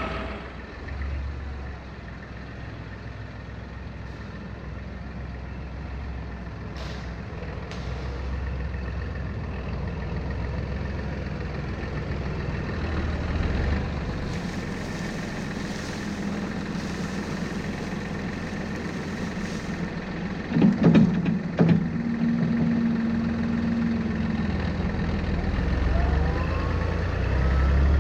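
Tractor engine running steadily, its level swelling and easing as it works. A few sharp metallic knocks come about three-quarters of the way through, and the engine pitch rises near the end.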